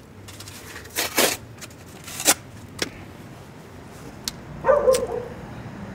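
A small kindling fire in a brick grill being fanned with a piece of cardboard: a few quick swishes and scattered small crackles as the wood catches. One short bark near the end, from a dog.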